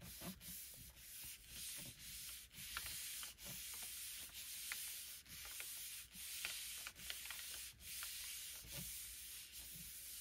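Palms rubbing and smoothing the back of a paper sheet pressed onto a gelli plate to pull a print: a faint, soft paper hiss in repeated strokes, with a few light taps.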